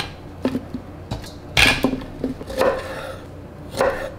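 Kitchen clatter on a wooden cutting board: a few sharp knocks and clinks of a knife and utensils on the wood, the loudest about a second and a half in.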